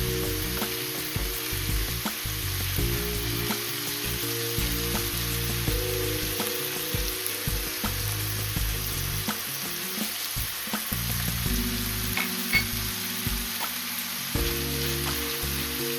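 Food sizzling and frying in hot oil in a pan, with light taps and scrapes of a utensil, over soft background music with held chords. There is one sharper metallic clink about twelve seconds in.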